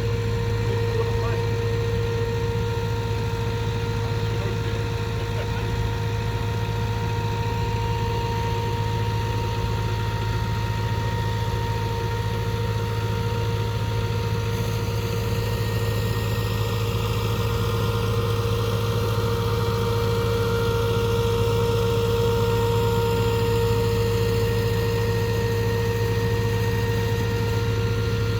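Boat engine running steadily under way, a constant drone that grows slightly louder past the middle. It is being tested with its propeller just cleared of wrapped cloth scraps.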